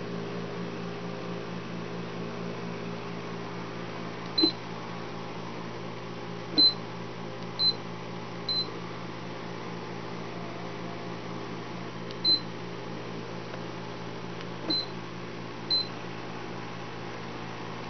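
Infinuvo QQ-2 Cleanmate robot vacuum running with a steady motor hum, giving seven short high beeps at irregular intervals as buttons on its remote control are pressed.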